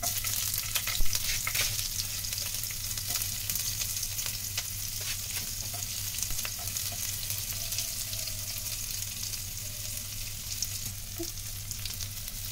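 Chopped onions sizzling in hot oil in a non-stick frying pan as they go in, with a spoon clicking and scraping as they are stirred. The sizzle is loudest in the first couple of seconds, then settles to a steady hiss.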